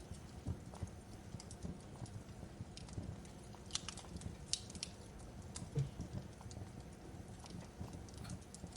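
Wood fire crackling in a fireplace: irregular sharp pops and snaps over a low steady rumble, with a few louder snaps around the middle.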